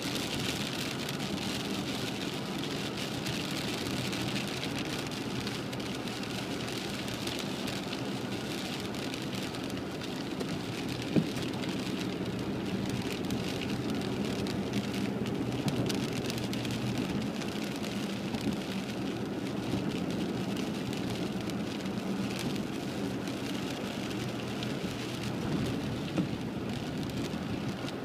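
Heavy rain hitting a car's windshield and body, heard from inside the moving car, over a steady low hum of the car running on the wet road. A few sharp single taps stand out, the loudest about eleven seconds in.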